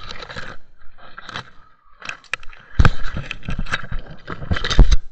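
Brush being cleared: leaves rustling and branches scraping and snapping in irregular strokes, with two heavy thumps, the loudest sounds, about three and five seconds in.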